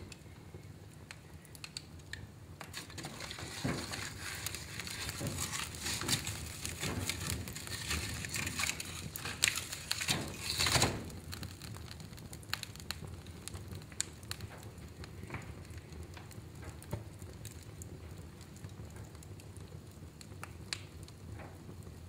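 Logs burning in a fireplace, crackling with many sharp pops over a faint hiss. The popping grows busier and louder from about four seconds in, is loudest around ten to eleven seconds, then thins out again.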